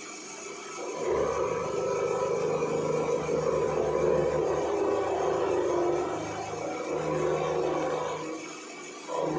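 A 400 W brushless spindle on a CNC router milling mild steel with a used end mill: a steady spindle whine with the grainy noise of the cut. The cutting noise grows louder about a second in, dips briefly near the end, then comes back.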